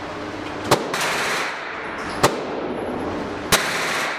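Three handgun shots at an indoor shooting range, about one and a half seconds apart, each sharp crack followed by a short echo off the range walls.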